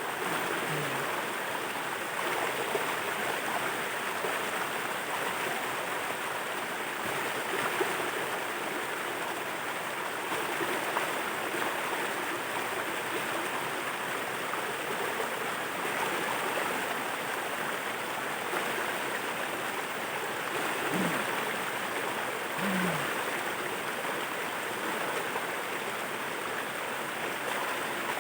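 Waterfall, water rushing and splashing in a steady, unbroken roar.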